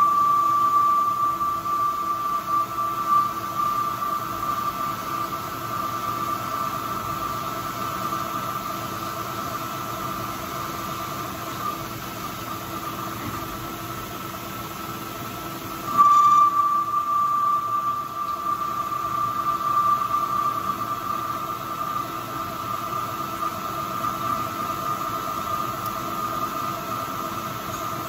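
Manual metal lathe running, with a steady high whine from the tool cutting the spinning workpiece. The whine fades out, then a fresh cut starts a little past halfway, loud at first.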